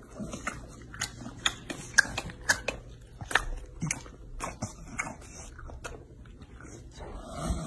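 English bulldog chewing a mouthful of dry cereal: irregular crisp crunches and mouth clicks.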